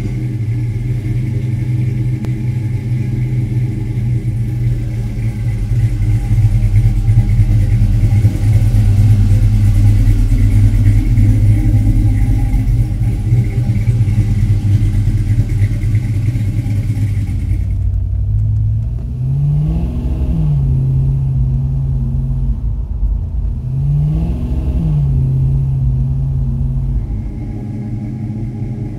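1970 Pontiac LeMans Sport convertible restomod's engine running steadily, then settling to an idle with two quick throttle blips, each rising and falling in pitch.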